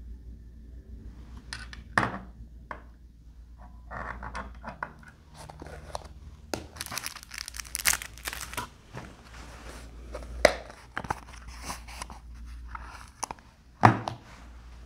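Handling noise of metal-framed sunglasses and their packaging: irregular crinkling and rustling, densest in the middle, broken by several sharp clicks and taps as the glasses are handled and set down on the countertop.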